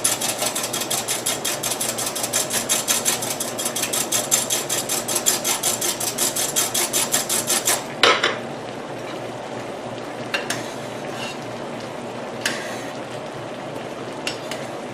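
Wire whisk beating milk and cornstarch in a glass measuring cup, a fast, even clatter of the wires against the glass that stops with a clink about eight seconds in. After that comes a low steady hiss with a couple of light clicks.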